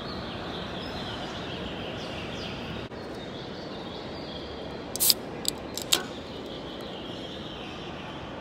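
Steady rushing background noise, with a short break about three seconds in. Three or four sharp clicks come a little past the middle.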